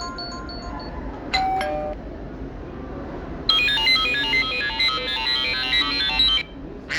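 iPhone ringtones on iOS 17 played back one after another. The last notes of one tone fade out, a short falling two-note chime sounds about a second in, and about halfway through a fast, glittering run of many high notes plays for about three seconds, then stops abruptly.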